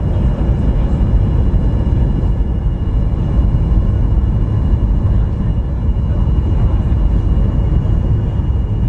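Steady low rumble of a Boeing 737's engines and rushing air heard inside the passenger cabin during the descent for landing, with a faint steady high whine above it.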